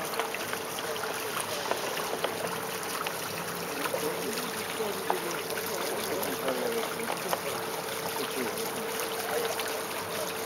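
Water rushing and trickling along a sailboat's hull as it motors slowly into harbour, over a steady hum from its auxiliary engine.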